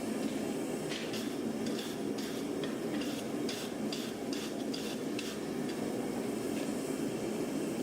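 A forge runs with a steady low roar, over which comes a quick run of light metallic clinks and scrapes, from about a second in to about five seconds in.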